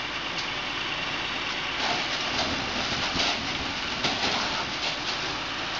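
Fire engine's pump running steadily, with the hiss of a hose stream spraying water on the fire; the noise swells a little in the middle.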